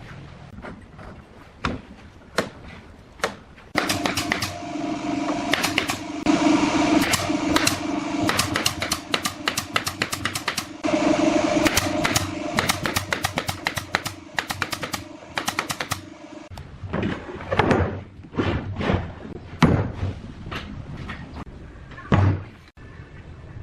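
Workshop tool noise: many sharp knocks and clicks, with a steady motor hum that starts a few seconds in and stops suddenly about two-thirds of the way through.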